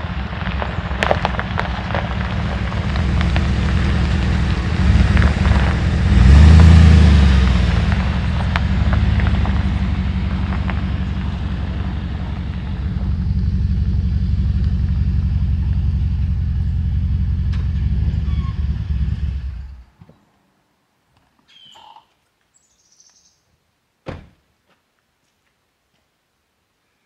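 Chevrolet Silverado pickup running as it rolls over gravel, then cutting off suddenly about twenty seconds in. After that it is nearly quiet, with one sharp thump a few seconds later.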